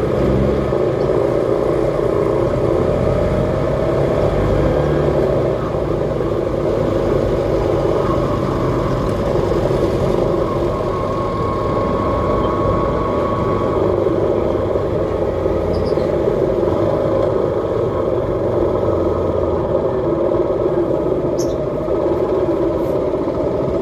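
Steady engine and road noise from riding in slow city traffic, with no marked revving or impacts.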